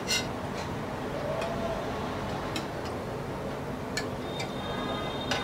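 Steel spatula clicking and tapping against a non-stick frying pan and tray while lifting fried kababs out: a few sharp, separate ticks, the clearest just after the start, over a low steady hiss.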